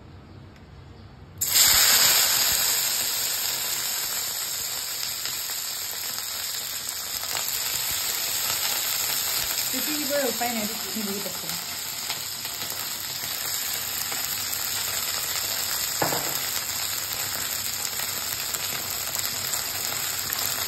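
Cut okra hitting hot refined oil in a kadai: a sudden loud sizzle starts about a second and a half in and carries on as a steady frying hiss. A single knock comes in the second half.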